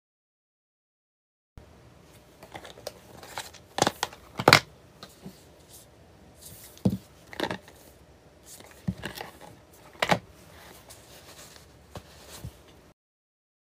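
Pet-care products in boxes and bottles being handled and set down on a table, with a run of sharp knocks and clicks over light rustling of packaging and cloth, the loudest knock about four and a half seconds in. The sounds begin about a second and a half in.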